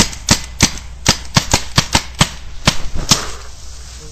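Paintball marker firing a rapid, irregular string of about a dozen shots, each a sharp pop, stopping about three seconds in.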